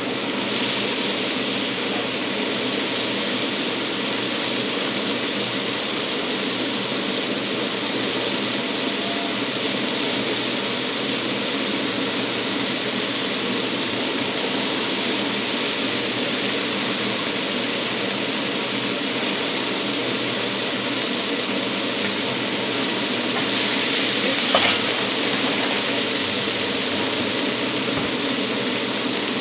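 Steady sizzling of oyster blade steak cooking on a hot griddle, over a steady low hum, with one brief click late on.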